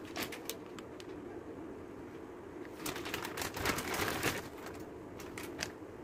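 Chicken tikka pieces tipped out of a plastic bag onto a plate: the bag crinkles and the pieces drop and knock against the plate, loudest in the middle, with a few light clicks before and after.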